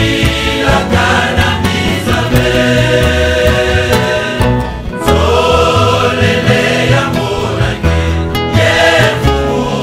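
Gospel music: a choir singing over held bass notes and light percussion.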